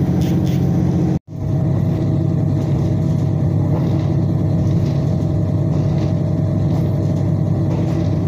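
Diesel local train heard from inside the carriage while running: a steady low engine drone with track rumble. The sound cuts out for an instant about a second in.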